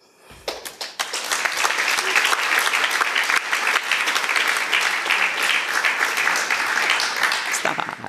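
Audience applauding in a lecture hall: dense clapping that swells up within the first second, holds steady and dies away just before the end.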